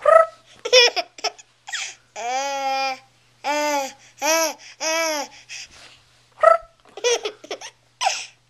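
A baby laughing in a string of short bursts, each rising and falling in pitch, with one longer, wavering laugh about two seconds in. After a brief lull, a few more quick laughs come near the end.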